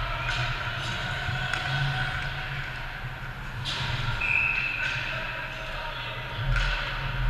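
Ice hockey play in an arena: sharp clacks of sticks and puck, spaced a second or more apart, over a low rumble, with one short, steady high tone a little past four seconds in.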